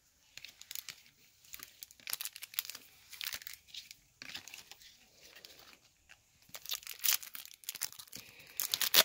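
Foil wrapper of a baseball card pack crinkling and tearing as the pack is opened, with cards handled and slid together. Irregular crackling in several spells with short pauses between.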